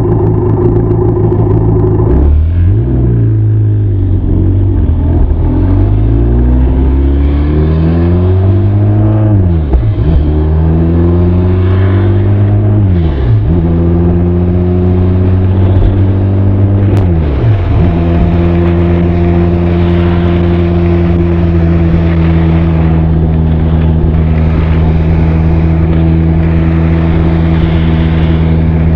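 Benelli TRK 502's parallel-twin exhaust under acceleration up through the gears. The engine note climbs and drops sharply at each of about four upshifts, then holds a steady note for the last ten seconds or so while cruising.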